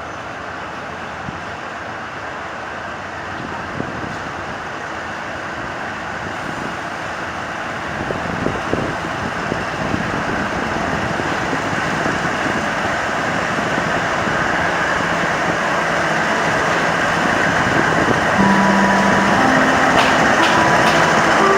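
Alsthom ALS diesel locomotive with a Caterpillar engine running as it hauls a train, growing steadily louder as it draws nearer. A few short steady tones and clicks come in near the end.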